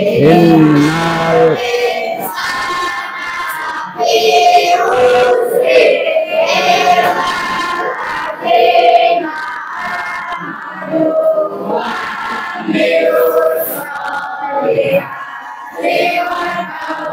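A class of schoolchildren reciting a prayer together in unison, chanted in a sing-song melody.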